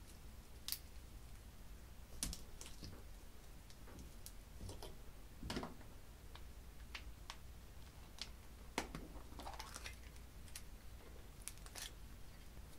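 Slime being squeezed, stretched and pressed by hand, giving faint, irregular clicks and small crackling pops, well over a dozen scattered through.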